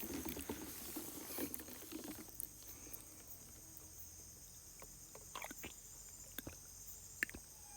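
A campfire crackling with scattered sharp pops, over a steady high buzz of insects.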